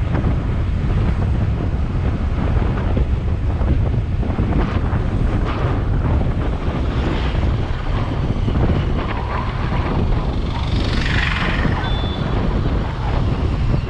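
Wind rushing over the microphone of a camera on a moving motorcycle, a steady low rumble, with a brief brighter hiss about eleven seconds in.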